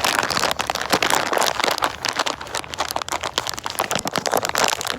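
Bag of sweet corn seed being handled, crinkling and crackling loudly and continuously as seed is taken out of it.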